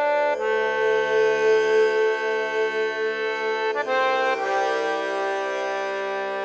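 Background music of long held chords, changing shortly after the start and again about four seconds in.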